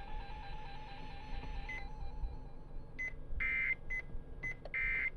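Emergency Alert System SAME data tones: two short buzzy digital bursts about a second and a half apart, with short beeps between them. This burst pattern at the close of an alert is the end-of-message code. A faint steady tone runs for the first couple of seconds.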